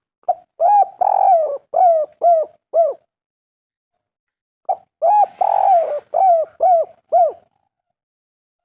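Spotted dove cooing: two song phrases, each a short note and a longer drawn-out coo followed by three short arched coos, the 'kuk 3' ending. The second phrase starts about two seconds after the first ends.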